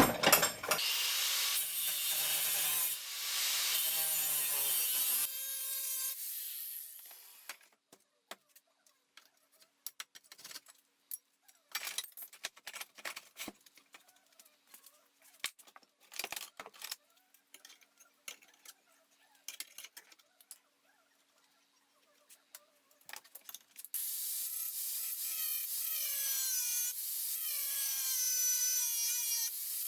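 Angle grinder with a worn-down cutting disc running for about five seconds, then about eighteen seconds of scattered light clicks and knocks, then the grinder running again near the end, its motor pitch sagging as it takes load.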